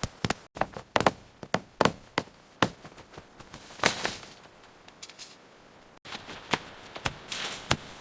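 Irregular sharp knocks of tools striking wood, as in chopping and hammering timber, spaced unevenly with short pauses between them.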